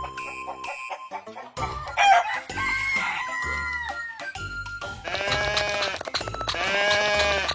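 Rooster crowing, a few long calls in the second half, over background music with a steady beat.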